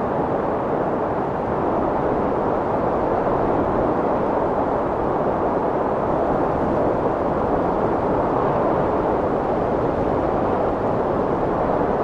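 Strong wind blowing steadily, a constant deep rushing noise with only slight swells in strength.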